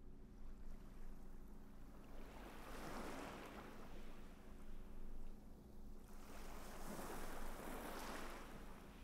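Ocean surf washing on a shore: two slow waves swell up and fall away, the first peaking about three seconds in and the second about seven seconds in. A faint steady low hum runs underneath.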